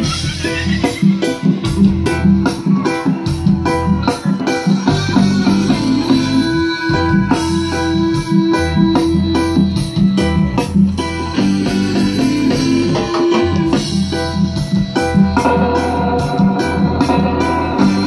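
A live band playing amplified music: electric guitars and bass over a steady drum beat, with organ-like keyboard chords.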